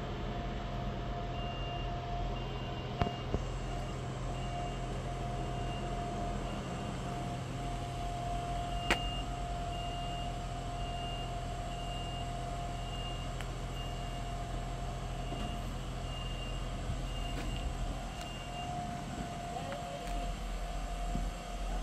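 LTG Link 620M diesel multiple unit standing with its engine idling: a steady low hum with a constant mid-pitched tone. A high beep repeats a little faster than once a second for most of it and stops near the end. There is a sharp click about nine seconds in.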